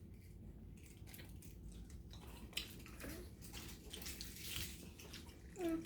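Faint wet chewing of soft, jelly-filled gummy candies: a scatter of small sticky smacks and clicks.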